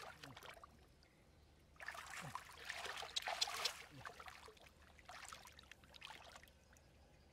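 Hands splashing and sloshing through shallow muddy water while grabbing a catfish. A loud burst of splashing starts about two seconds in and lasts about two seconds, followed by a few smaller splashes.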